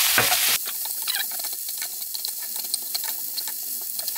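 Seasoned diced pork sizzling in chili-flake oil with scallion and onion in a coated pot, stirred with a spoon that clicks and scrapes. About half a second in, the sizzle turns thinner and quieter, with scattered sharp ticks.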